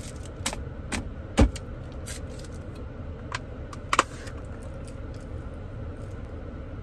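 Sharp clicks and crinkles as a straw is unwrapped and pushed through the plastic lid of a fast-food soft-drink cup, the loudest a knock about a second and a half in. A steady low rumble of the car cabin runs underneath.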